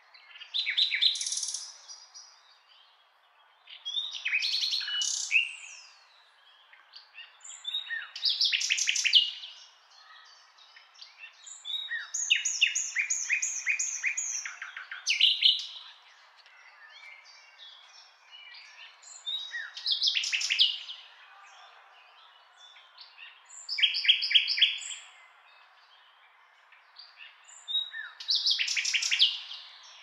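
Common nightingale singing: separate song phrases of a second or two every few seconds, several of them built from fast runs of repeated notes.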